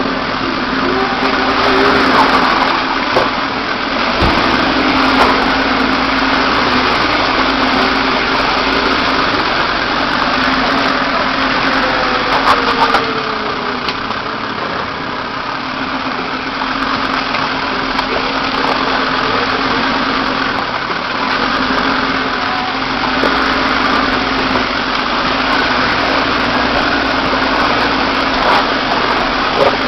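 Land Rover 4x4's engine running steadily at low revs as it crawls over a rough, muddy trail, with a few brief knocks.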